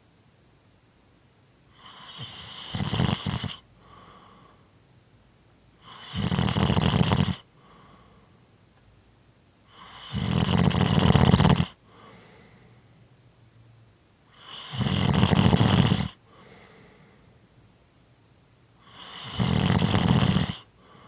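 A sleeper snoring in a steady rhythm: five loud snores, one about every four seconds, each lasting about a second and a half, with a faint breath between them.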